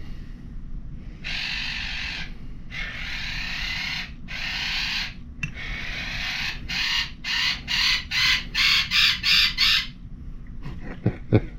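Steel fire striker scraped back and forth on a coarse sharpening stone, pressed hard to grind in a new edge bevel. It makes a gritty rasp: four long strokes, then a run of short, quicker strokes about three a second before it stops near the end.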